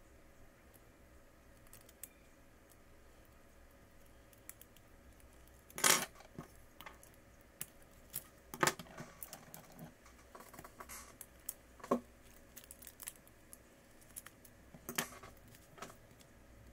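Scattered light clicks and small hard taps of tools and parts being handled during tablet repair work, with a few sharper knocks, the loudest about six seconds in.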